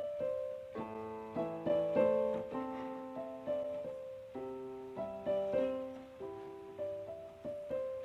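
Background piano music: a melody of single struck notes over chords, each note fading after it sounds.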